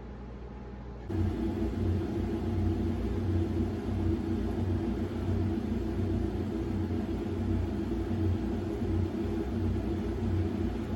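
A steady low rumble with a droning hum starts suddenly about a second in and continues unchanged, over a faint quiet background before it.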